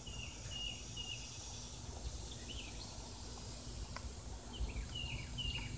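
Outdoor ambience: short chirping bird calls come and go over a steady high insect drone and a low rumble.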